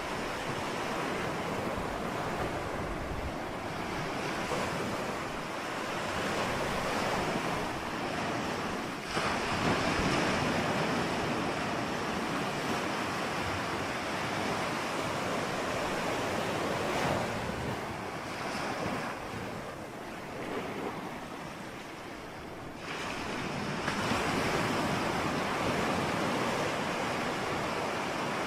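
Ocean surf: a continuous rush of breaking waves that swells and eases, dipping into a lull about twenty seconds in before building again.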